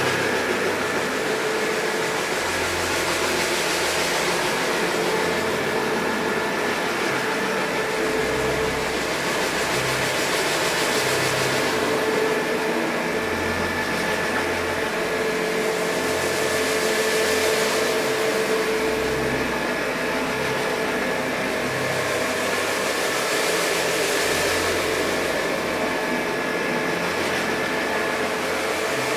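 Electric carpet scrubbing machine running steadily, its motor humming while the rotating brushes churn through shampoo foam on a wet rug. The brushing hiss swells every few seconds as the machine is pushed back and forth.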